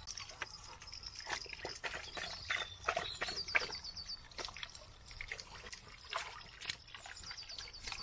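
A dog lapping water at a small spring basin, a quick irregular run of wet licks and splashes, with the spring's thin stream trickling underneath.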